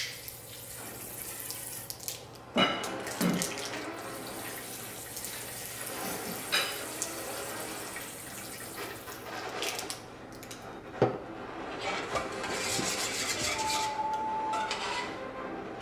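Lemon juice squirting and sputtering from a squeezed plastic lemon-juice bottle into a stainless-steel mixing bowl, with a few sharp clicks. Near the end a spoon stirs in the steel bowl.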